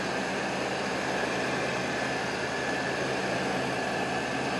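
Freshly rebuilt 4.3 L V6 with throttle-body injection in a 1990 Chevy truck idling steadily, heard from just above the open engine bay. It runs evenly, down at its normal idle speed after the cold start, which is what it should do.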